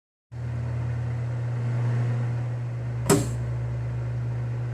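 Steady low hum of machine-shop equipment, with a single sharp metallic click about three seconds in.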